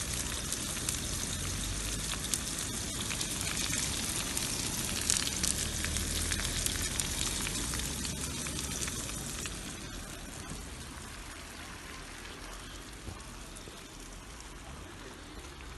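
Sucuk (Turkish spiced sausage) frying in oil in a pan: a dense, steady sizzle and crackle that eases a little after about ten seconds.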